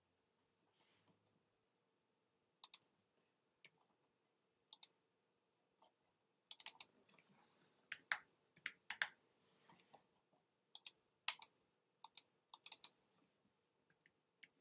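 Faint computer keyboard keystrokes and mouse clicks: a few single clicks spaced about a second apart, then several quick runs of keystrokes.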